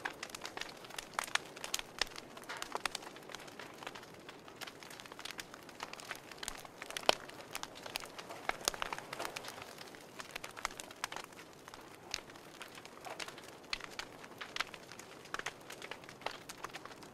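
Wood fire burning in a wood stove, crackling with irregular sharp pops and snaps over a soft hiss.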